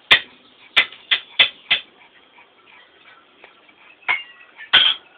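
A run of sharp taps on a hard surface: about five in the first two seconds, roughly three a second, then two more about four and five seconds in.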